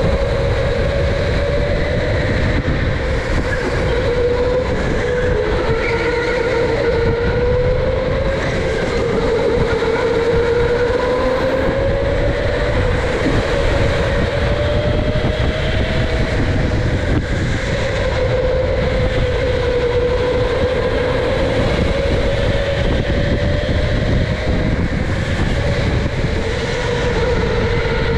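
Electric go-kart motor whining under way, heard from on board the kart, its pitch slowly rising and falling with speed, over a steady low rumble of the kart running on the track.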